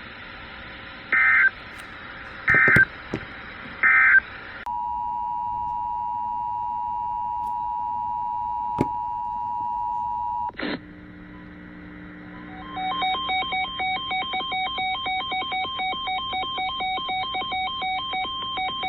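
Emergency Alert System tones: three short screeching data bursts, then a steady two-tone attention signal for about six seconds. After a click, a rapidly warbling electronic ringing tone pulses about four times a second.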